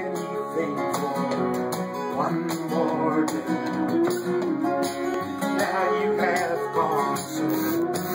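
An acoustic guitar strummed together with a glockenspiel struck with mallets, with a wavering melody line sounding over them now and then; a small folk group playing an instrumental opening.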